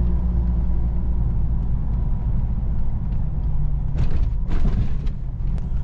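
Car driving along: a steady low rumble of engine and road noise, with two short rushes of noise about four and four and a half seconds in.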